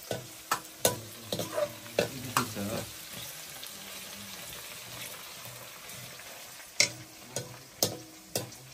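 Metal ladle scraping and knocking against a black iron karahi as chopped mushrooms fry in it with a steady sizzle. Sharp ladle strikes come in clusters through the first three seconds and again near the end, with a stretch of plain sizzling between.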